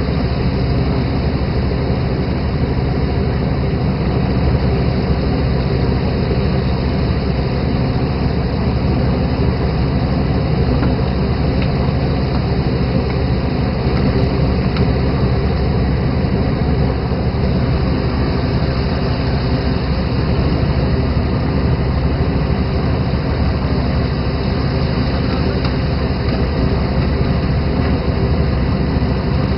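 Fishing boat's engine running steadily under a constant rushing noise of wind and water along the hull.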